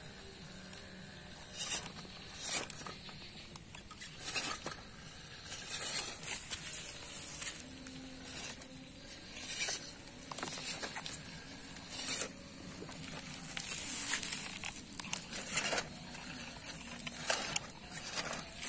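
MN99S RC crawler working up a wet dirt slope: tyres scrabbling on soil and grit with irregular clicks and crackles, and a faint low motor whir now and then, over a steady high-pitched tone.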